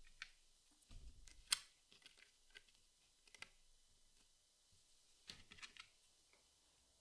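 Jigsaw puzzle pieces being handled and set in place: faint scattered clicks and taps with a few soft thumps, clustered about a second in and again past five seconds, with one sharper click near a second and a half.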